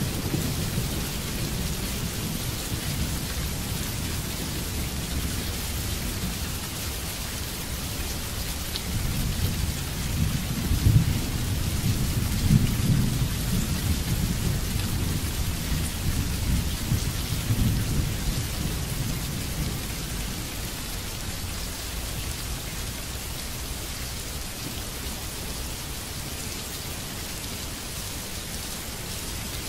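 Steady heavy rain hiss, with a roll of thunder that rumbles in about a third of the way through, peaks near the middle and dies away by about two thirds of the way through.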